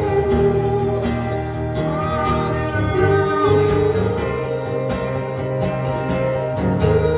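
Two acoustic guitars strummed in a steady rhythm under male voices singing long held notes that waver slightly.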